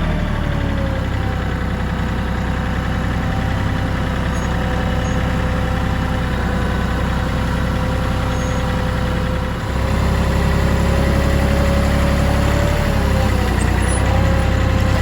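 Kioti CK3510SE compact tractor's diesel engine running steadily under a continuous whine. The loudness dips briefly about ten seconds in, and the whine wavers near the end.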